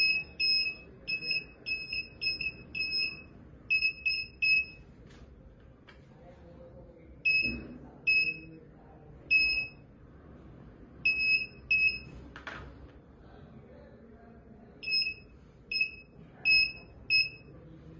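Hope Scorpion 700139 hand-held metal detector sounding its alarm: short high-pitched beeps in clusters of a few at a time, with pauses between, each cluster signalling that the wand has passed over a metal test sample.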